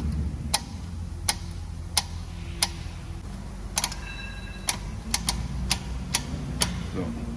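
Sharp single clicks, roughly one to two a second and unevenly spaced, from a MAN TGX truck's front brake caliper as its pistons are pushed back for new pads. A steady low hum runs underneath.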